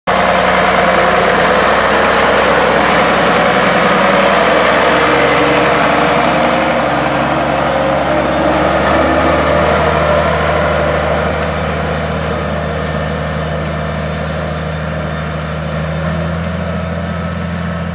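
International 966 tractor's six-cylinder engine running steadily under load as it pulls a planter through the field. Its note shifts about halfway as it passes, and it grows a little fainter as it moves off.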